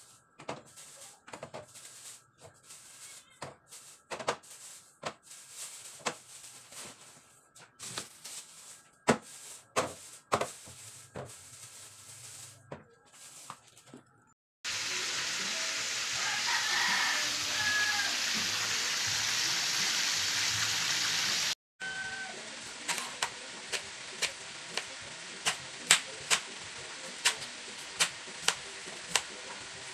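Knocks and plastic-bag rustling as groceries are put into a refrigerator, then about seven seconds of loud sizzling from frying oil that stops suddenly, then a knife chopping carrots on a plastic cutting board in sharp taps, a little more than one a second.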